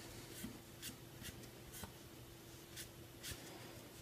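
Damp cotton wad with baking soda being rubbed on a black plastic computer case: a series of short, faint scrubbing strokes at an uneven pace of one or two a second.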